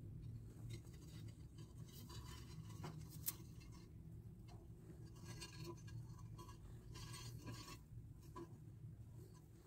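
Near silence: faint rubbing and scratching with a few soft clicks over a low hum, the sound of close handling near young rabbits.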